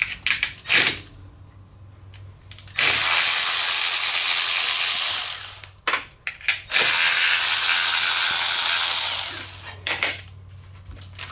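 Power ratchet with a 10 mm socket running out coil-pack bolts: two steady runs of two to three seconds each, with clicks from the tool and socket before, between and after.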